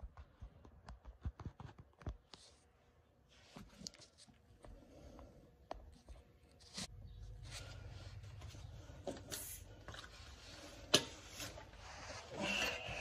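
Faint scattered clicks, taps and scrapes of hand tools and metal fasteners being handled while working on a car's exhaust downpipe bolts. A low steady hum joins about seven seconds in, and there is one sharper click near the end.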